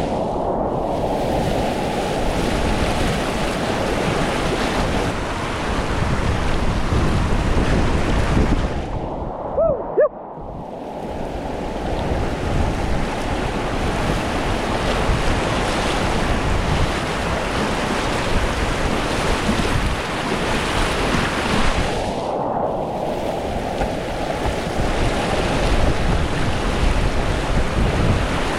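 Rushing whitewater of the North Fork Payette River rapids, heard from inside the run as a loud, continuous roar with splashing. Twice it turns briefly dull and muffled, about nine seconds in and again about twenty-two seconds in, with a short sharp sound near the first dip.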